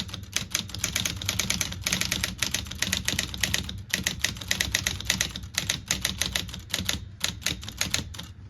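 Smith Corona 5TE electric typewriter being typed on: fast runs of key and typebar strikes over the steady low hum of its running motor, with brief pauses about four seconds in and near seven seconds. The freed-up typebars strike steadily, the machine working again now that the old WD-40 has been cleaned out.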